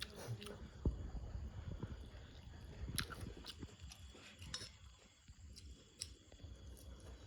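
A person chewing and biting papaya, with irregular crisp clicks and mouth noises.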